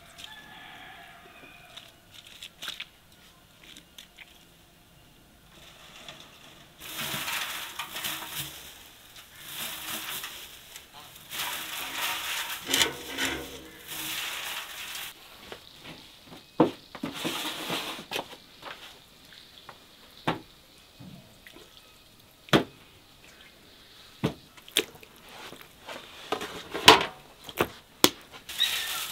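Dry wood shavings poured and tipped into a steel barrel, a rustling hiss that comes and goes, followed by scattered sharp clicks and taps.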